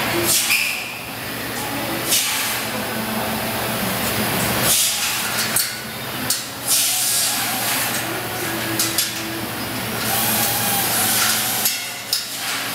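Metal-rod kennel frames on casters clanking and rattling with several short knocks as two units are rolled together and latched, over a steady hiss.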